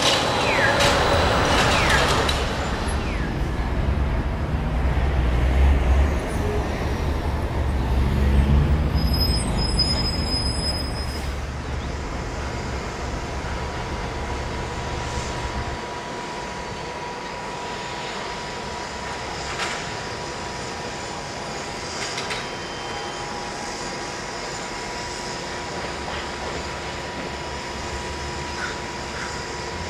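Bus and street traffic noise. A heavy engine rumble runs through the first half and drops away about halfway through, leaving quieter steady traffic noise.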